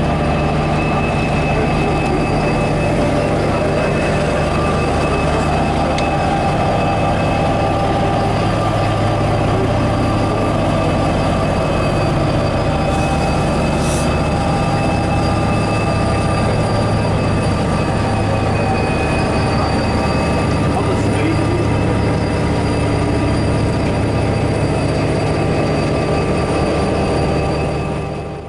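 IE 201 Class diesel-electric locomotive's EMD 12-cylinder two-stroke diesel running at low revs as it moves slowly past: a steady low engine hum with a steady whine over it.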